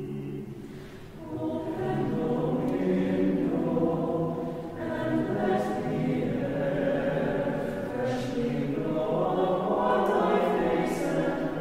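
Mixed chamber choir singing sustained chords. A low held chord gives way about a second in to higher voices that swell and build, with a few hissed 's' consonants cutting through near the middle and end.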